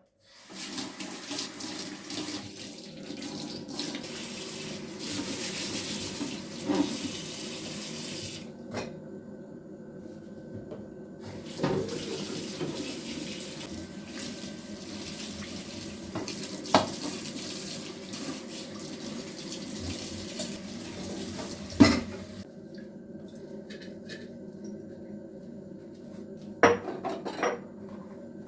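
Kitchen tap running into a sink: it is turned off about eight seconds in, back on a few seconds later, and off again about 22 seconds in. Several sharp knocks of dishes or pans in the sink, the loudest about 22 seconds in, with two more knocks near the end once the water is off.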